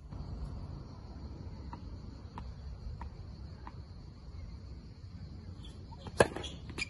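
Tennis ball bounced on a clay court four times, faint knocks about two-thirds of a second apart. About six seconds in comes a loud sharp crack of the racket striking a serve, then a smaller knock. Insects keep up a steady high buzz.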